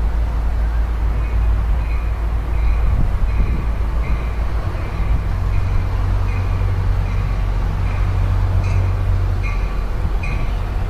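A warning bell dinging steadily, a little under twice a second, over a loud low rumble as a commuter train slowly approaches the station.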